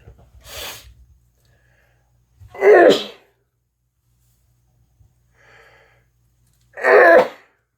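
A person sneezing twice, about four seconds apart, each loud sneeze preceded by a short, breathy intake of breath.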